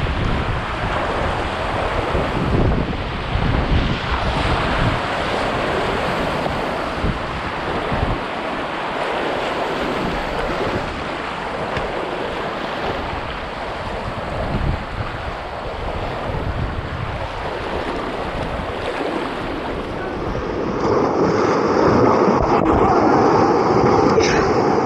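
Whitewater rapids rushing and splashing around a kayak, with wind buffeting the microphone. Near the end the rush turns brighter and steadier as the sound comes from a raft in the rapids.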